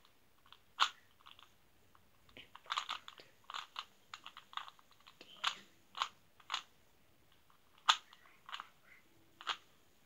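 A 3x3 Rubik's cube being scrambled by hand: its plastic layers turning with a string of short, irregular clicks and clacks, some in quick clusters, the sharpest about eight seconds in.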